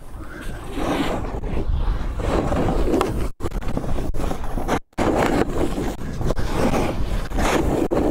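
Snowboard sliding and scraping over the snow with wind rushing over the microphone, swelling and fading every second or two. The sound drops out briefly twice near the middle.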